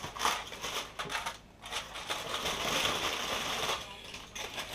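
Aluminum foil crinkling and rustling as it is unwrapped, in uneven spells with short lulls.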